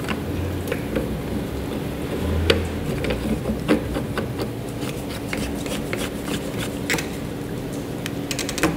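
Hands screwing a plastic pipe union nut back onto a PVC pipe fitting, with scattered clicks, knocks and rubbing of plastic on plastic. Underneath is the steady hum and rush of the running reverse-osmosis plant.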